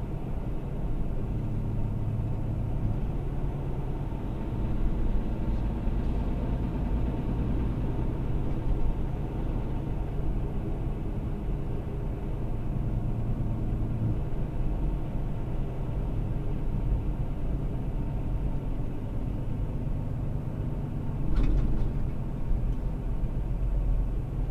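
Semi truck's engine and road noise heard from inside the cab, a steady low rumble with the engine note shifting about halfway through. A brief sharp click a few seconds before the end.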